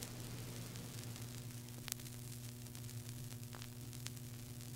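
Vinyl LP surface noise in the silent groove between tracks: a steady hiss over a low hum, with a sharp click about two seconds in and a fainter one about a second and a half later.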